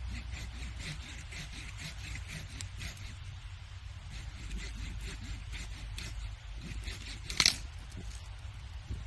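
Firewood crackling as it burns: many small ticks over a steady low rumble, with one sharp, loud pop about seven seconds in.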